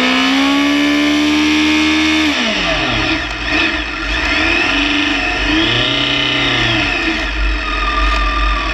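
Motorcycle engine revved hard and held high for about two seconds, then dropped, followed by two shorter blips of the throttle, during a rear-tyre burnout to heat the tyre before a drag run. The revs settle near the end.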